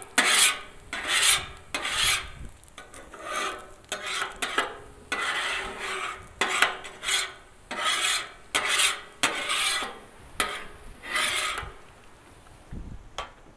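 Metal spatula scraping the flat steel cooktop of a 28-inch Blackstone griddle in about fifteen short strokes, roughly one every 0.7 s, stopping near the end.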